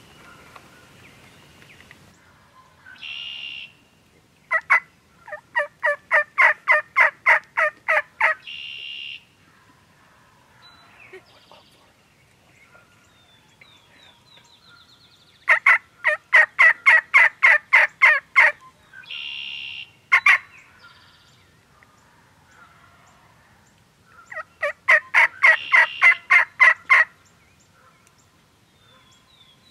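Eastern wild turkey gobblers gobbling three times. Each gobble is a rapid rattling run of notes lasting about three seconds.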